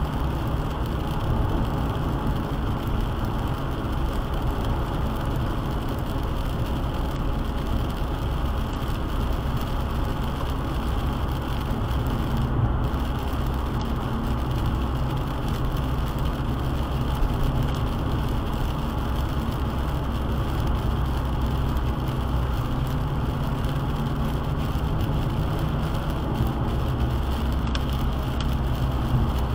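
Steady road noise inside a car driving on a wet highway: tyres hissing on the wet road surface and rain on the windscreen, over a low rumble.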